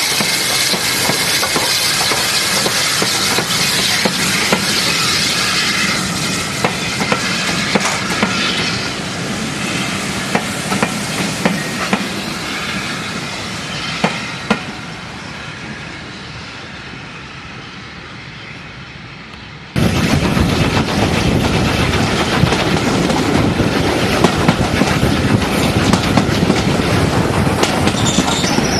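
Caledonian Railway 0-4-4T steam tank engine No. 419 passes close by with a strong hiss of steam, then its coaches roll past with wheels clicking over the rail joints, fading away. About two-thirds of the way through the sound cuts to the loud, steady rumble and clatter of riding in a coach of the steam-hauled train.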